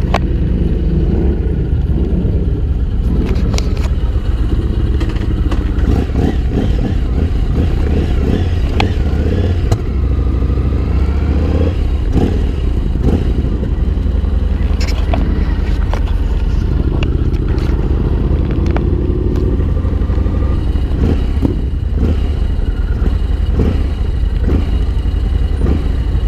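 Yamaha MT-01's 1670 cc V-twin engine running as the motorcycle rides slowly through city traffic, a steady deep rumble with a few short clicks.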